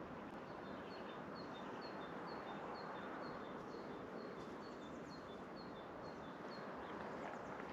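A small songbird singing a quick two-note phrase over and over, a high note then a slightly lower one, about twice a second; it stops about five seconds in. Under it runs a steady even background noise.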